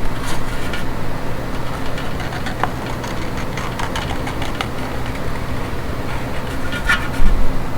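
Steady low mechanical hum with a few light clicks and taps, and a brief louder clatter near the end.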